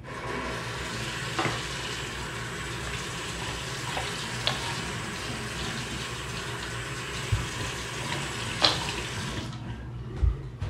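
A tap running into a sink in an even stream, with a few light clicks and knocks. The water shuts off sharply about a second before the end.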